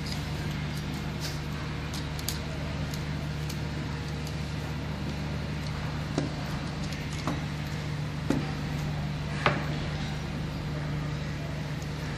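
Small metallic clicks and taps of a hand tool working on the screw terminals of a rotary changeover switch as a wire is fastened, with a few sharper clicks between about six and ten seconds in, over a steady low hum.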